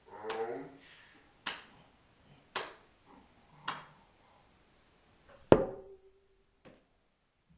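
A bottle being knocked or hit: four sharp knocks about a second apart, then a louder hit that rings briefly, and a last small click.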